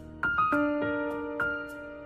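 Background music: a short melody of about five struck notes, each ringing on, over a soft sustained backing.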